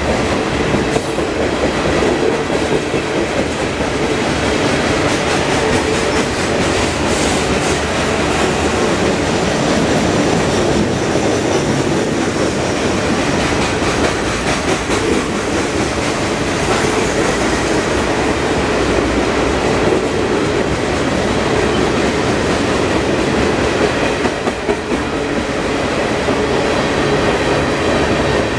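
Freight cars of a long manifest train rolling past, a steady loud rumble of steel wheels on rail with clicks and clatter as the wheels cross rail joints.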